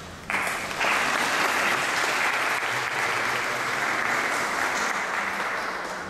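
Audience applauding: the clapping starts a moment in, swells within the first second, holds steady, and dies away near the end.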